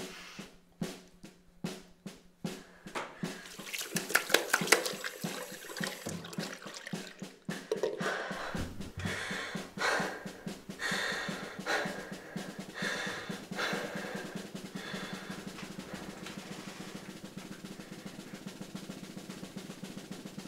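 Percussive film-score music. A ticking beat builds into loud drum hits about four seconds in, then gives way to repeated drum strikes over a low steady drone, settling into an even drum roll near the end.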